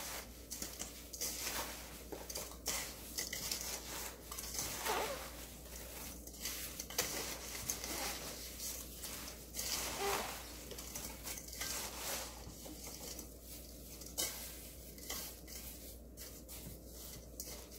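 Gloved hands tossing and pressing cut fruit with coarse raw cane sugar in a stainless steel bowl, working the sugar in so that it dissolves: irregular, fairly quiet rustling and gritty scraping with the odd soft knock.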